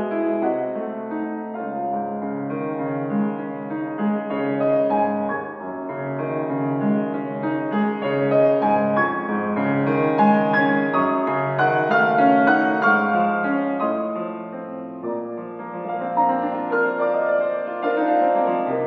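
Solo grand piano playing a slow piece, with held notes and chords overlapping one another.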